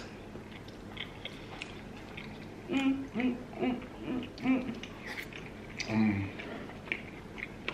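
Short closed-mouth "mmm" hums of enjoyment from a person chewing food: a run of four or five in the middle and a lower one a little later, with faint clicks between.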